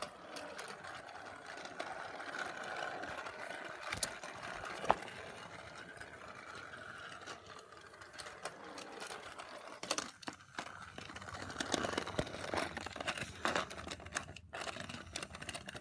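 Battery-powered TrackMaster Diesel 10 toy train running on plastic track: the steady whir of its small electric motor, with a sharp click about five seconds in and scattered clicks and knocks in the second half.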